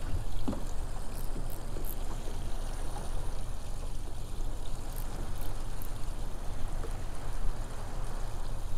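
Water lapping and trickling against a small boat's hull over a low steady rumble.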